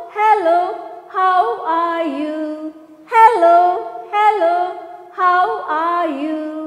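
A woman singing a greeting song without accompaniment, in two similar phrases of about three seconds each.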